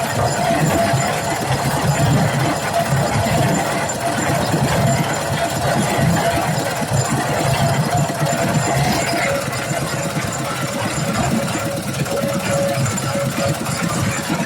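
Engine of road-construction machinery running steadily, with a rapid low pulsing and a faint steady whine over it.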